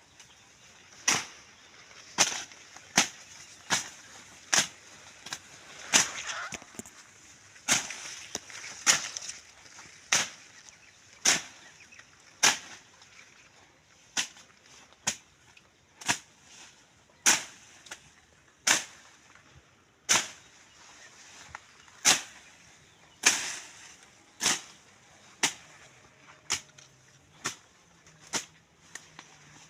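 A slasher blade swung through bush and undergrowth, each stroke a sharp swishing cut, about one a second and fairly regular.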